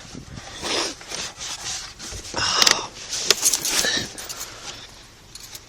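Plastic interior trim and ducting rubbing and scraping as it is handled and pushed into place, in four or so short bursts.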